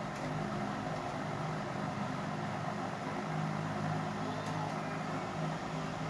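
Steady low mechanical hum in the background, with a droning tone that swells a little now and then.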